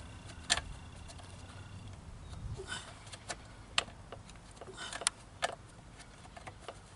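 A few scattered sharp metal clicks and taps, about five of them, from bolts and small hardware being handled and fitted by hand at a steel push-mower deck's threaded engine-mount holes.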